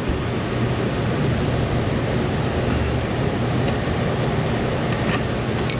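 Steady rushing noise with a low hum, like running machinery or a blower, holding even with no distinct knocks or clicks.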